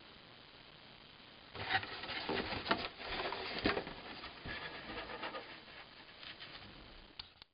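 Cardboard toy box being handled: irregular scraping, rubbing and tapping with sharp little clicks, starting about a second and a half in after faint room tone.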